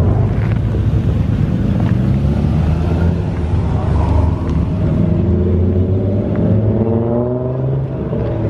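Loud, deep rumble of car engines and exhausts idling, the engine note drifting slightly up and down.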